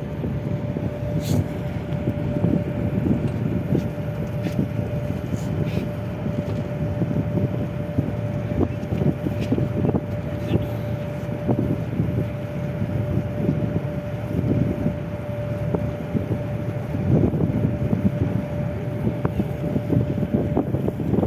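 Boat engine running steadily, a low rumble with a steady hum above it, with wind buffeting the microphone.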